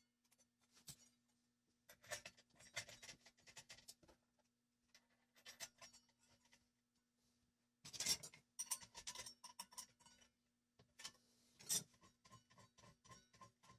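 Light metal clinks and rattles as a toothed circular saw blade, washer and nut are handled and fitted onto an angle grinder's spindle. Near the end the blade is spun by hand, giving a quick run of light, evenly spaced ticks.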